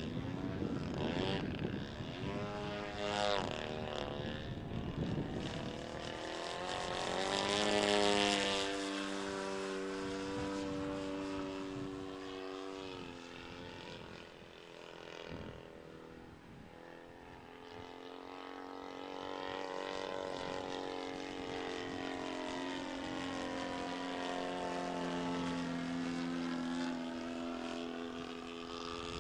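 Radio-controlled MXS aerobatic airplane's engine and propeller droning overhead, the pitch rising and falling as it manoeuvres. It is loudest about eight seconds in, fades for a few seconds near the middle, then holds a steadier note toward the end.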